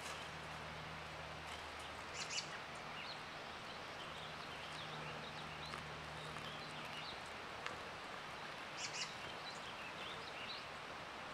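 Birds chirping now and then over a faint steady hiss of outdoor background noise, with a low hum that comes and goes and a couple of soft clicks.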